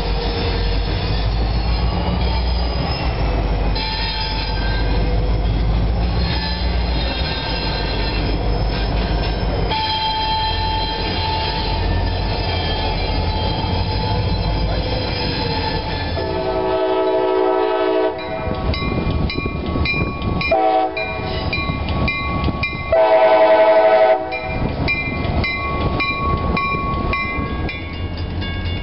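A diesel-hauled freight train passing at close range: low rumble of locomotives and railcars with thin, steady high squealing above it. About halfway through, a locomotive air horn sounds three times: a long blast, a short one, then a long, loudest blast.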